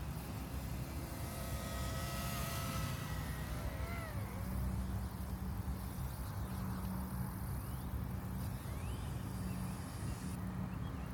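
Wind rumbling on the microphone. A faint high whine holds its pitch for a couple of seconds, then wavers and dips about four seconds in.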